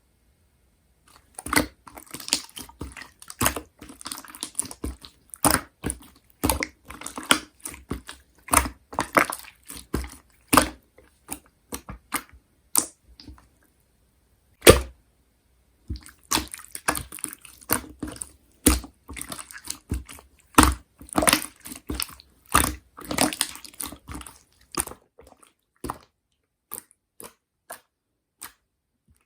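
Clear slime being squeezed and worked by hand, making rapid sticky, wet clicks and pops. The clicking stops for about two seconds around the middle except for one loud pop, then resumes and thins out to scattered clicks near the end.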